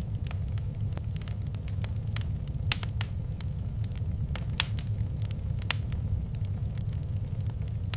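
Fireplace fire crackling over a steady low roar, with scattered small clicks and three louder, sharp pops about a third, halfway and two-thirds of the way through.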